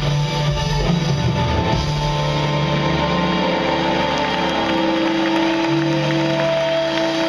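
Live rock band music, filmed from within the crowd, with guitar; long held notes sustain through the second half.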